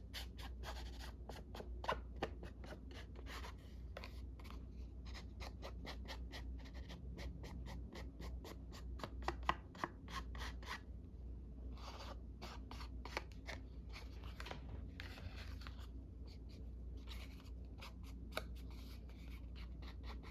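Pen strokes on a paper index card: quick repeated scratchy scribbling, several strokes a second, with a couple of short pauses. A low steady hum runs beneath it.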